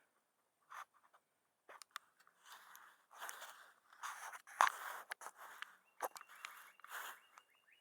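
Irregular crunching and scraping sounds, with scattered clicks. From about six seconds in, a faint high, rapidly pulsing chirp joins them.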